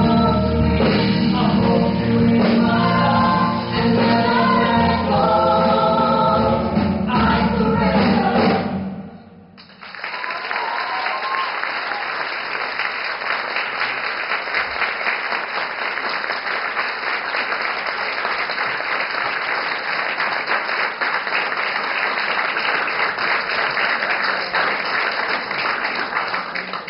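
A live band with piano, bass, drums, horns and backing vocals plays out the last sung notes of a song with a female lead singer, stopping sharply about nine seconds in. An audience then applauds steadily for the rest of the time.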